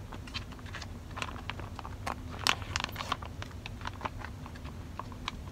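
Foil retort pouch of baked beans being handled and torn open: irregular crinkles and crackles, with the sharpest rip about two and a half seconds in.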